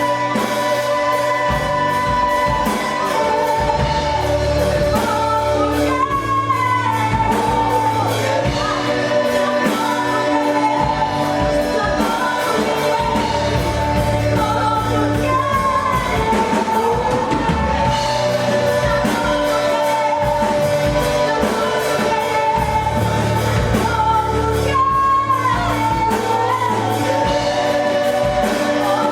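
Gospel worship music: singing held on long notes over a steady beat with bass and instruments.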